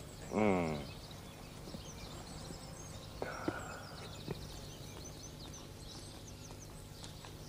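Faint outdoor background ambience with small birds chirping in short, high twitters.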